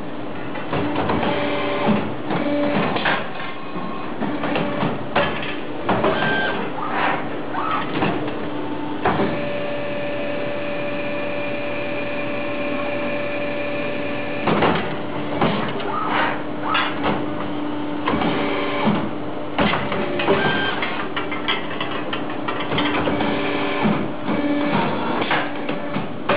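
CNC pipe bending machine running a bending cycle on steel tube for a chair frame: a steady hum, a higher whine held for about five seconds midway, and repeated clanks and clicks as it clamps, bends and feeds the tube.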